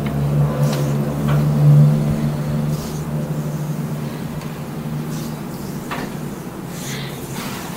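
Steady low engine-like hum, loudest in the first couple of seconds and then easing off, with a few faint rustles of hands rubbing skin.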